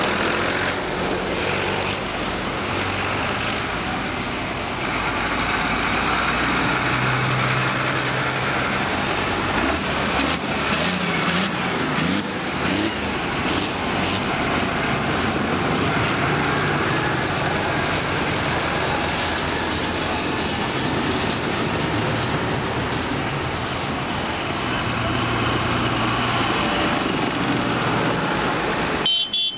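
A procession of diesel farm tractors, vintage and modern Case IH and New Holland among them, driving past close by one after another, engines running steadily. The sound drops out briefly near the end.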